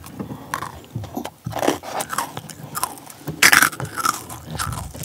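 Crunchy biting and chewing of chocolate-coated Pepero biscuit sticks topped with sprinkles: a run of short crisp crunches, loudest about three and a half seconds in.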